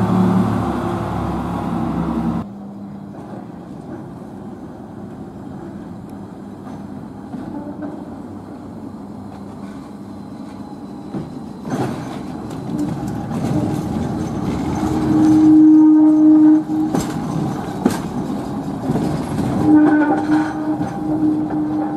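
A double-decker bus engine pulls away for the first couple of seconds, then a heritage electric tram runs along street track and round a curve, its wheels knocking over rail joints. A steady drawn-out tone sounds for about a second and a half two-thirds of the way through, and again near the end.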